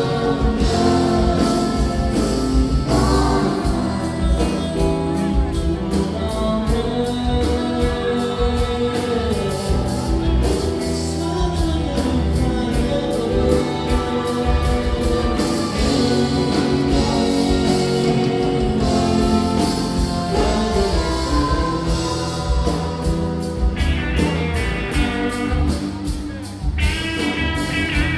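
Live rock band playing: a sung vocal over electric guitar and drums, with steady cymbal strokes keeping time. A high guitar line comes in near the end.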